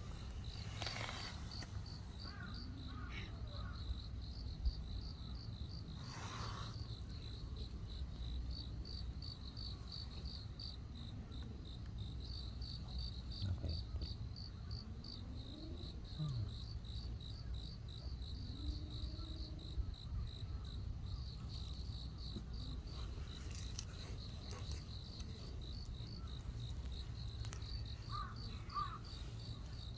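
Crickets chirping in a steady run of rapid, even chirps, over a low background rumble.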